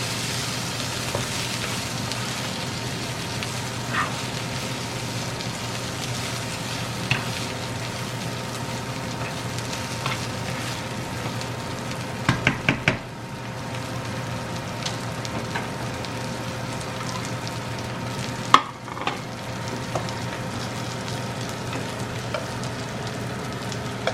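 Asparagus and sausage sizzling in oil in a frying pan, a steady hiss, with a few sharp clicks against the pan: a quick run of four about twelve seconds in and a louder one a few seconds later.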